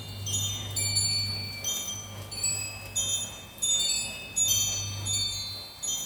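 Metal wind chime ringing in a breeze: several high tones are struck at irregular moments and overlap as they ring on.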